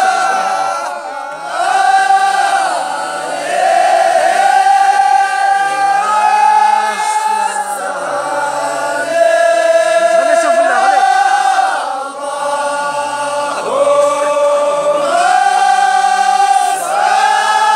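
A large group of men chanting together in unison, holding long notes in phrases of about two seconds with short breaks between them.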